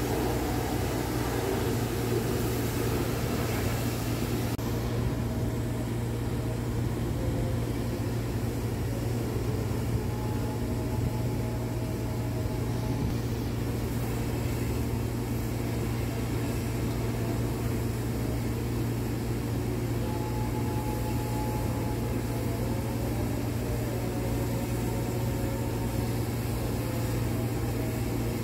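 Steady low mechanical hum of manual car wash equipment, a constant drone. A hiss over it drops away about four seconds in.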